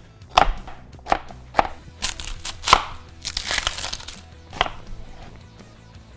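Chef's knife chopping carrots on a plastic cutting board, a few sharp knocks about half a second to a second apart, then the dry papery skin of an onion crackling as it is peeled, and another knife cut through the onion near the end.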